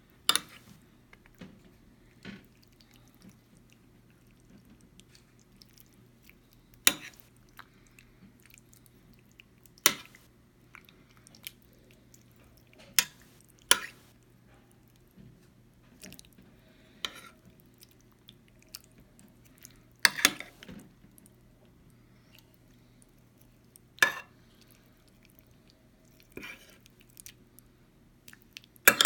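Metal spoon and fork working through a stew in a ceramic baking dish: about a dozen sharp, irregularly spaced clinks of metal on the dish, with faint wet sounds of the stew between.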